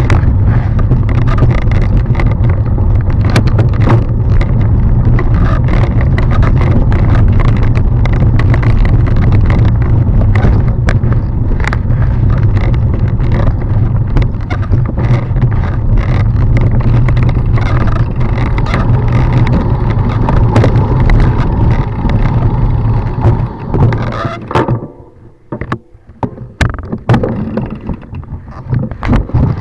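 Wind rushing over the camera microphone and the rattle and knocks of a mountain bike running fast down a rough, rocky singletrail. About 24 seconds in, the rushing stops abruptly, leaving scattered knocks.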